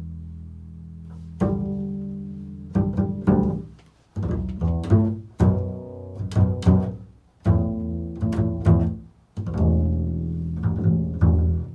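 Improvised music on a deep-pitched plucked string instrument: low notes struck in short phrases, each left to ring and fade before the next run begins.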